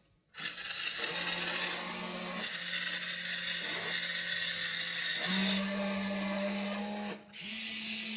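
Small electric motors and gear trains of a WLtoys RC excavator running steadily, a whirring hum whose pitch steps up slightly about a second in and again around five seconds, with a brief dip near seven seconds as the drive changes.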